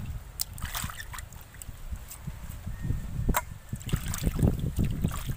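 Water sloshing and splashing in a steel plate as hands rub and wash whole pomfret fish, with a few sharp clicks against the metal.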